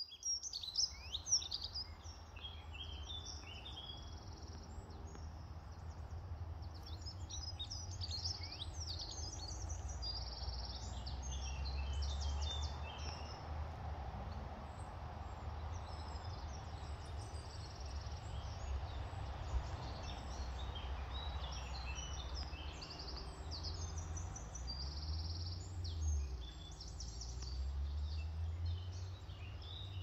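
Woodland songbirds singing and calling, a dense mix of short high chirps and trills from several birds, over a steady low rumble.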